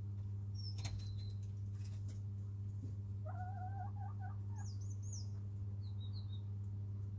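A hen's soft wavering trill, about a second long, from about three seconds in, over a steady low hum. A few short high chirps from small wild birds follow, and there is a single click near the start.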